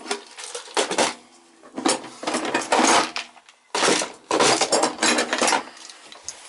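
Metal hand tools clinking and rattling together in a few bursts, the two longest around the middle.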